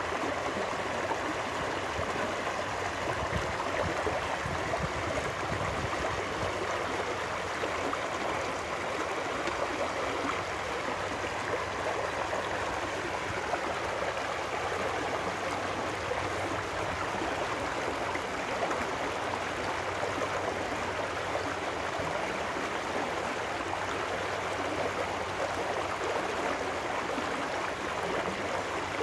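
Small trout stream running fast over rocks where it spills out between concrete walls: a steady, even rush of splashing water.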